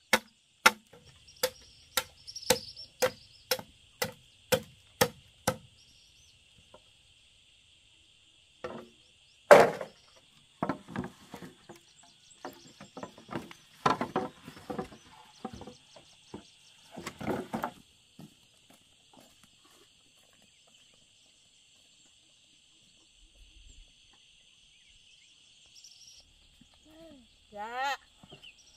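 Machete chopping into the base of a green bamboo stalk, about two sharp strokes a second for the first five seconds. Then a loud knock and a stretch of hollow clattering as cut bamboo poles are gathered up and knock together, while insects buzz steadily.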